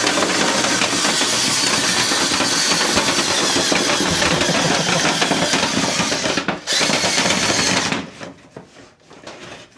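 A drill spinning a rotary vent-brush rod inside a clogged dryer vent duct, with a loud, rattling whir. It breaks off briefly about six and a half seconds in, runs again, and stops about eight seconds in, leaving light clatter.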